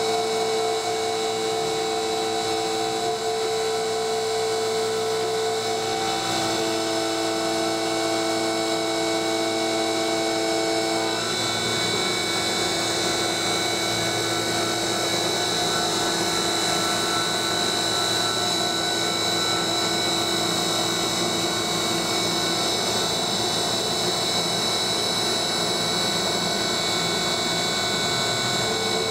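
CNC mill's brushless DC spindle motor running and an end mill cutting 6061 aluminium under coolant: a steady whine with cutting noise. The whine changes pitch about six seconds in and again about eleven seconds in, after which the cut sounds rougher.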